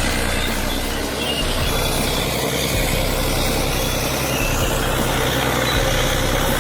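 Heavy diesel machinery running steadily under load, a continuous engine drone with mechanical clatter over it.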